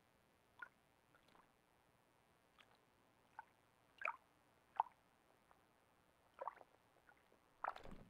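Ural owl bathing in a shallow pool: a series of faint, short, irregular splashes and drips as it dips into the water, the loudest cluster near the end.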